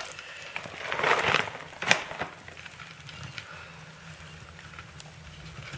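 Seramis orchid substrate poured from its bag into a plant pot: a brief rustling patter of loose granules about a second in, with a sharp tick just before two seconds. Fainter rustling follows as fingers press the substrate down around the plant.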